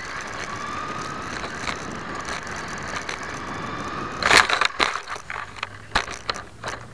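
Team Associated SC10B radio-controlled short-course truck heard from its onboard camera: the electric motor whines and the tyres hiss on asphalt. About four seconds in it crashes off the pavement into a mulch planter bed, with one loud hit followed by a string of knocks and rustles as it tumbles and stops.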